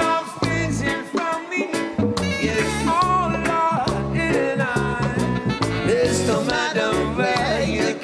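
Live reggae band playing: a repeating bass line and an even offbeat rhythm under a sung melody.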